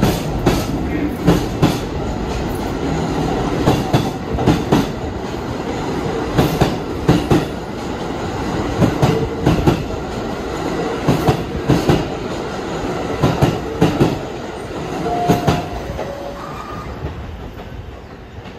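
New York City subway train running through the station, its wheels clicking over rail joints in pairs about every two and a half seconds, with a couple of brief squeaks near the end as the sound fades.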